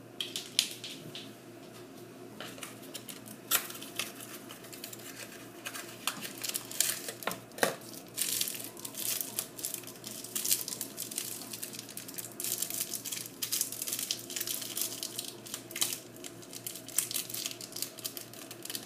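Kitchen prep handling sounds: a run of small clicks, taps and crinkling as an ingredient container and measuring spoons are handled. A steady electric fan hum runs underneath.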